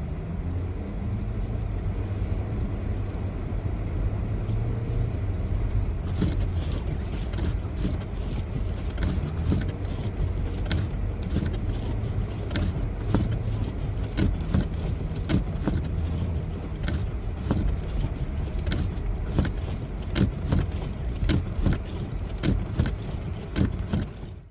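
A vehicle running with a steady low rumble, with many short clicks coming thick from about six seconds in.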